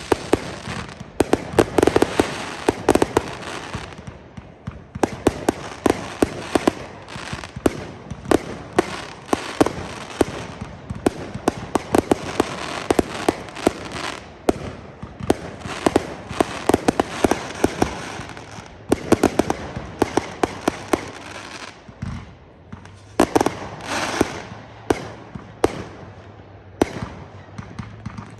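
Fireworks display going off in a rapid, continuous barrage of sharp bangs and crackling, with a brief lull about three-quarters of the way through.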